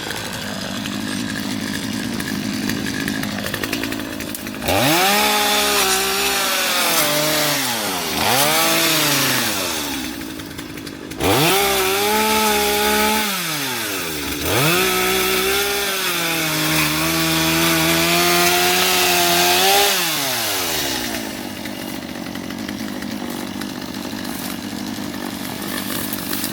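Gas chainsaw, just started, idling, then revved several times from about five seconds in, its engine pitch rising and falling with the throttle, before settling back to idle near the end.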